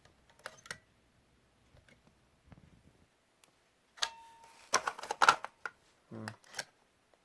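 Plastic clicks and snaps of a vintage Can-Am Fire Angel FA-1 smoke detector being handled, its cover and test button being worked. Two light clicks come about half a second in, then a quicker run of sharper clicks and snaps from about four seconds in.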